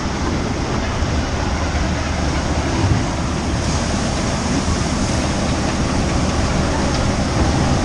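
Steady rush of water with wind buffeting the microphone, heard aboard a funfair jungle river water ride.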